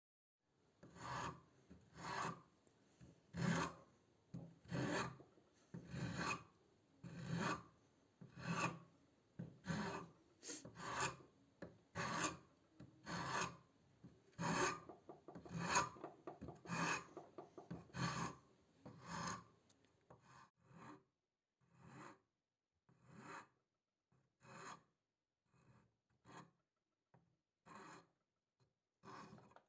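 Slow back-and-forth abrasive strokes by hand, a rasping scrape about once a second, during the restoration of an old hand plane. After about 20 seconds the strokes become shorter and lighter.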